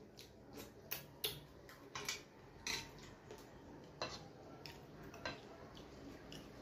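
A hand mixing rice with food on a stainless steel plate: a dozen or so irregular, sharp clicks and light scrapes of fingers against the metal.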